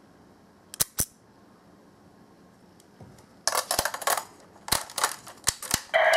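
Small hard-plastic clicks and rattles from a Jyudenchi toy battery being handled and snapped into place: two sharp clicks about a second in, then a quick run of clicks. A loud electronic toy voice starts right at the end.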